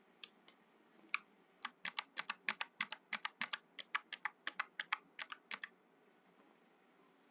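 Mechanical keyboard being typed on: a few single key clicks, then a quick run of about two dozen keystrokes lasting about four seconds before the typing stops.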